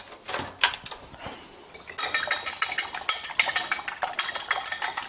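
A utensil beating egg whites in a dish: after a few scattered clicks, a fast, even run of metal-on-dish clinks, about six a second, starts about two seconds in.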